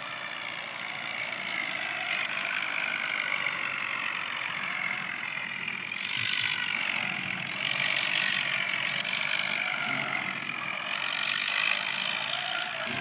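Tractor engine running while driving on the road, its pitch slowly rising and falling, with mechanical rattling.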